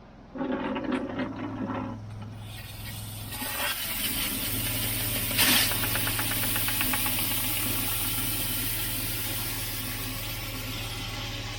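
Petrol pressure-washer engine starting up and then running steadily. About two and a half seconds in, the high-pressure water jet starts with a steady hiss, with a brief louder burst a few seconds later.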